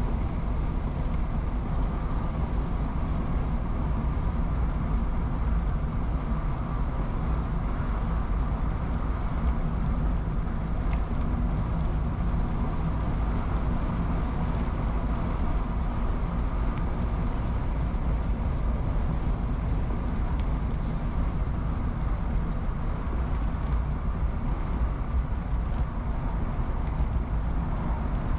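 Steady low rumble of riding noise, wind on the camera microphone and road noise, while riding an early-1970s Peugeot UJ-10 ten-speed bicycle. It holds level throughout, with only a few faint ticks.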